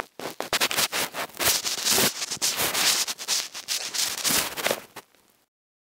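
Handling noise: the phone's microphone rubbing and scraping against bedding, a loud crackling rustle that cuts off about five seconds in.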